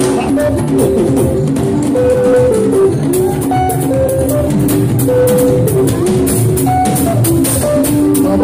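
Fuji band music in an instrumental stretch: drums and percussion keep a quick, steady beat under melodic lines of held notes.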